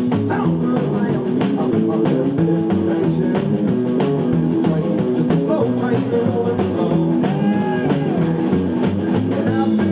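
Rockabilly band playing live: drum kit, upright double bass and hollow-body electric guitar, with a steady driving beat.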